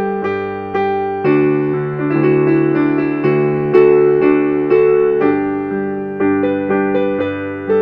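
Background music: a piano or electric keyboard tune with notes struck about twice a second.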